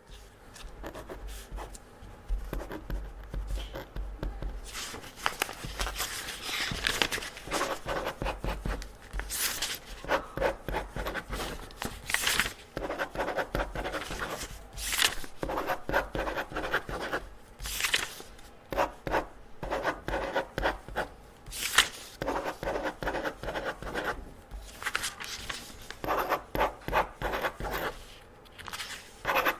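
Pen scratching across paper in a quick run of short strokes: tests being marked by hand. Every few seconds there is a sharper, brighter stroke.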